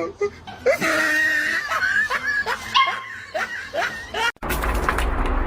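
A dog yipping and barking in a run of short, gliding high calls. About four seconds in it cuts off abruptly to a steady rumbling noise.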